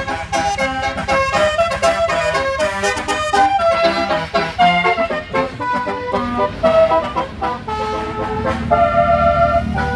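A bus's telolet musical air horn playing a rapid melody of short, changing horn notes, the later notes held longer. A low engine rumble rises over the last few seconds.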